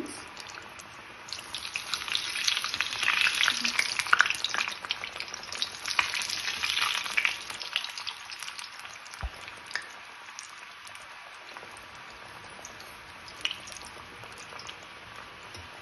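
Rice-flour kodubale dough rings deep-frying in hot oil, a dense crackling sizzle. It is loudest in the first half, then settles to a quieter, steady sizzle.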